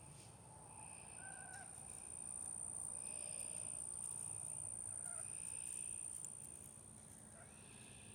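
Faint calls of a domestic goose: a few short, soft calls, with a higher call repeating about every two seconds and a steady high whine throughout.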